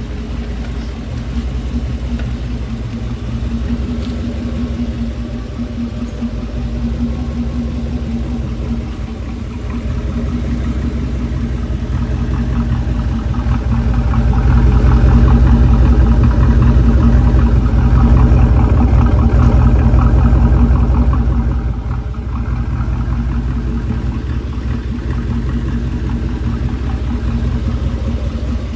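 OBS truck's engine running with a fast, steady clicking, brought up to a higher speed from about halfway in for several seconds, then dropping back to idle. The clicking is what the owner takes for a lifter tick.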